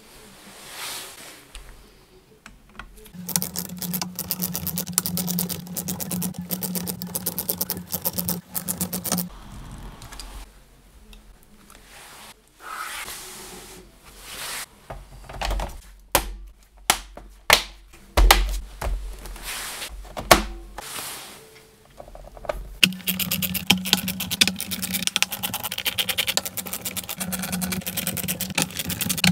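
Two long stretches of steady mechanical whirring, the second while a screwdriver drives screws into the laptop's plastic bottom case. Between them come scattered sharp knocks and clicks of the laptop's parts being handled.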